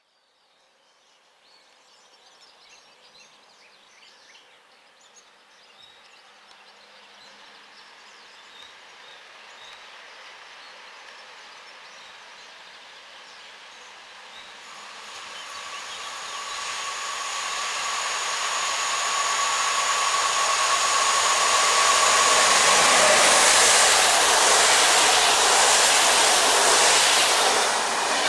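Electric passenger train, an EU160 locomotive hauling Intercity coaches, approaching and growing steadily louder over some twenty seconds. A steady whine comes in about halfway through, and then the locomotive and coaches rush past at speed near the end.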